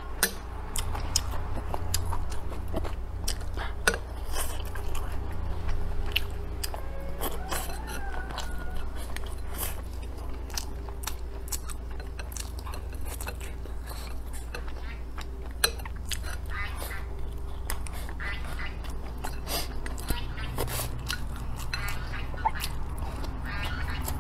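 Close-up mouth sounds of someone eating rice and braised pork belly: chewing and lip smacks with many small clicks, over a steady low hum.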